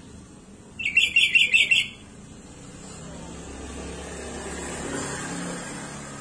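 Sooty-headed bulbul gives a quick run of about six chirping notes lasting about a second, near the start. Afterwards a vehicle passes, its sound swelling and fading.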